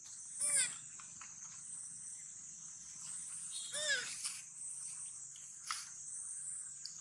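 Baby monkey giving two short cries that arch up and down in pitch, one about half a second in and one about four seconds in, over a steady high-pitched hiss.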